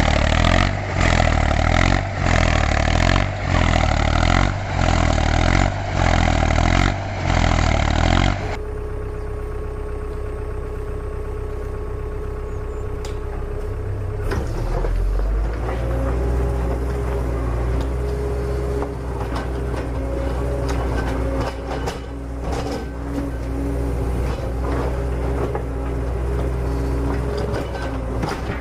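Rhythmic music with a steady beat for about the first eight seconds. It cuts off abruptly to a vehicle engine running steadily at a low pitch, with a shift in its tone about six seconds later and small clicks and rattles over it.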